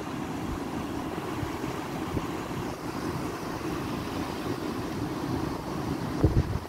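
Rough, muddy sea surging over the shore with wind, a steady rushing noise, and wind thumping on the microphone twice about six seconds in.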